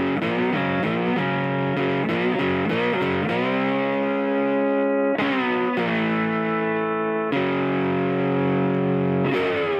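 Intro music: distorted electric guitar playing quick picked notes, then sustained chords struck and left ringing.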